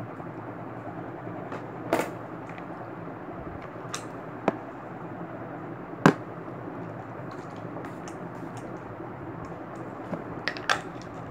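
A handful of short, sharp clicks and taps from small objects being handled, the loudest about six seconds in and a quick cluster near the end, over a steady background hiss.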